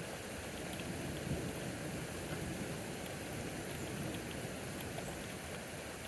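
Steady rain falling during a severe thunderstorm, with a low rumble of thunder swelling slightly about a second in.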